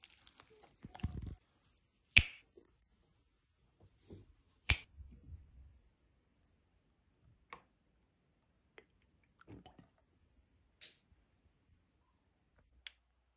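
A spatula stirring a wet, thick batter in a bowl for about a second, then a few sharp, separate clicks and taps of kitchen utensils against the bowl and dish, the two loudest near the start, with near quiet between them.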